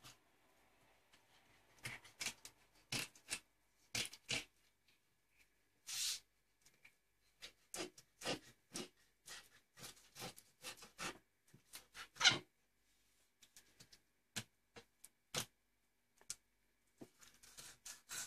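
Kitchen knife scraping and cutting a small fish on a plastic cutting board: irregular short scrapes and clicks of the blade along the fish and against the board, with one longer scrape about six seconds in and the loudest stroke about twelve seconds in.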